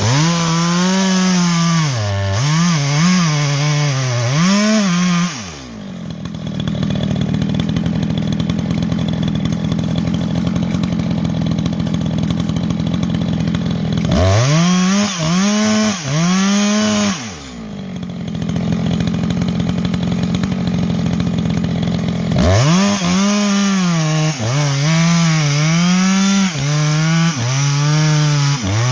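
Echo CS-620PW two-stroke chainsaw with its muffler baffle removed and carburetor leaned out slightly, revved in quick repeated throttle blips, dropping back to a steady idle twice in between.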